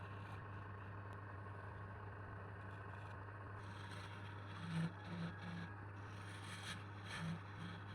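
Steady low electric hum, joined about halfway through by light, irregular scraping and rustling with soft knocks about twice a second.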